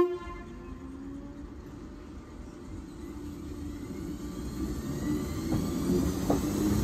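Merseyrail Class 508 electric multiple unit pulling into the platform, its running noise growing steadily louder as it nears. The end of a horn note sounds right at the start, and there are a couple of short knocks near the end.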